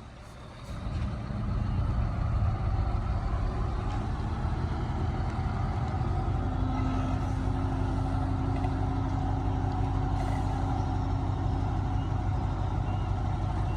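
Heavy diesel engine of earthmoving machinery running steadily, swelling up about a second in and then holding a deep, even rumble.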